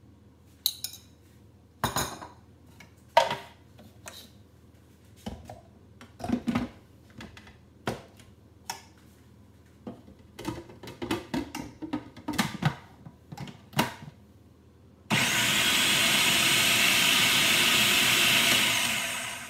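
Scattered clicks and plastic knocks as a food processor's bowl and lid are handled and fitted. Then the food processor's motor runs steadily and loudly for about four seconds, blending eggs with black pepper, and winds down as it is switched off.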